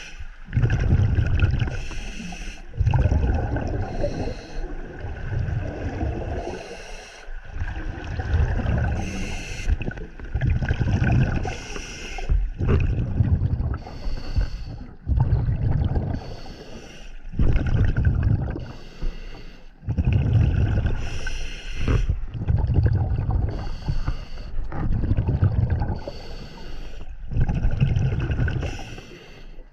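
Scuba diver breathing through a regulator underwater: a short hiss on each inhalation, then a longer low rumble of exhaled bubbles, the cycle repeating every couple of seconds.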